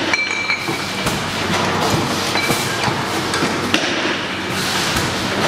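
Glass sparkling-wine bottles clinking and knocking as they are handled and fed through a disgorging machine, over the machine's steady hum. Near the end comes a short rush of hiss.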